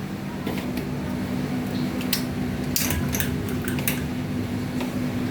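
Small electric ceiling fan motor running with a steady low hum, and a few sharp clicks about two to four seconds in.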